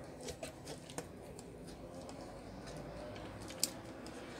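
Small metallic clicks and taps of a screwdriver working the screws of a stand fan's motor housing, a few in the first second and one sharper click about three and a half seconds in.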